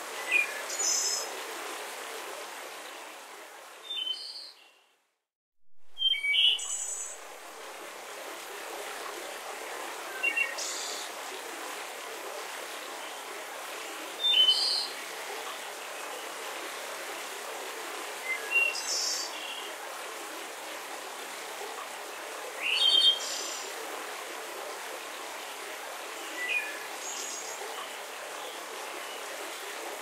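Steady rush of a forest waterfall, with short bird chirps and calls breaking in every few seconds. About five seconds in, the sound briefly fades to silence and comes back.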